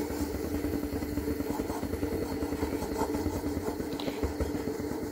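A steady low motor-like hum with a deep rumble, running evenly throughout, over a faint hiss.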